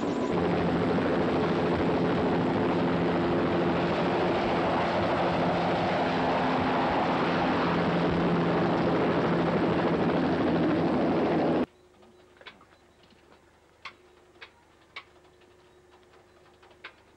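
Helicopter engine and rotor running, a loud steady noise with a steady low hum. About two-thirds of the way through it cuts off abruptly, leaving quiet with a few faint sharp clicks.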